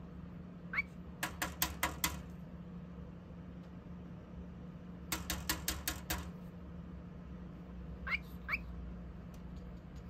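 Male cockatiel tapping its beak on a clear plastic case in two quick runs of about six taps each. A few short rising chirps come between the runs.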